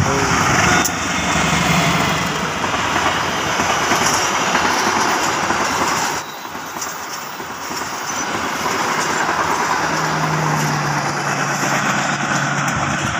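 KAI passenger train passing close by at speed: a diesel locomotive and a string of coaches making a loud, steady rush of wheels on rail. The noise dips about six seconds in, and a steady low hum comes in near the end as the train draws away.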